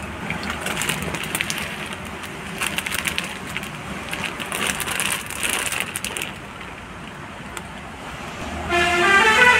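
Catfish splashing and slapping at the water surface of a bucket as they snatch floating feed pellets, in quick irregular splashes that thin out after about six seconds. Near the end a louder pitched horn-like tone sounds for about a second.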